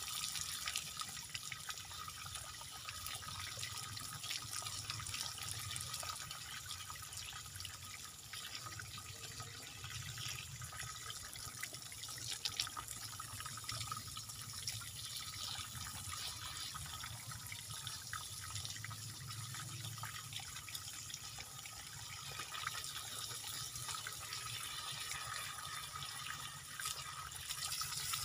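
Water from a garden hose spraying and splashing steadily onto a bonsai's root ball, washing soil out from among the roots.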